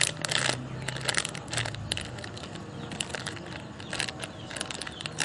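Irregular clicking and crackling of hands handling a tiny foam squishy toy close to the microphone, with bursts of clicks clustering every second or so.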